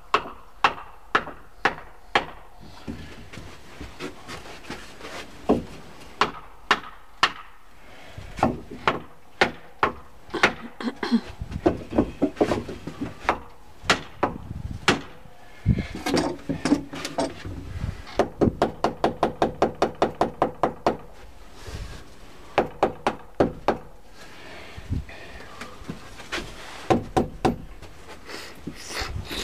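Claw hammer striking wooden blocks on a timber rail: single blows at an uneven pace, with a quick run of lighter taps at about five a second around two-thirds of the way through.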